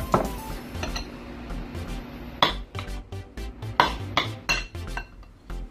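Metal spoon clinking against a ceramic bowl while scooping out filling: several sharp clinks, one at the start and a cluster in the second half. Background music runs underneath.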